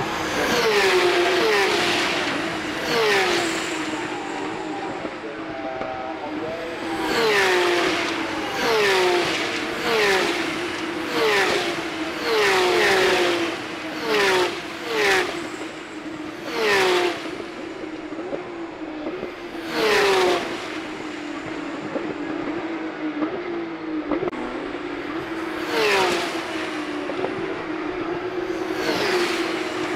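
Porsche 911 GT3 Cup (type 992) race cars, with 4.0-litre flat-six engines, passing at speed one after another, about a dozen times. Each pass rises sharply and drops in pitch, with the passes bunched together in the middle and fewer near the end. A steady engine drone runs underneath.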